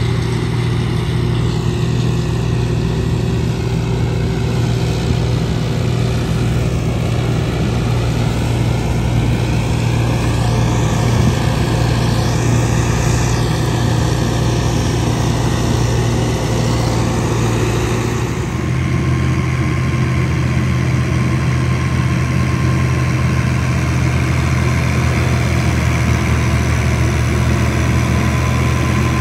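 Diesel farm tractors running steadily under load, driving PTO-powered wheat-straw choppers. The engine sound changes abruptly about two-thirds of the way through, as it switches to another tractor.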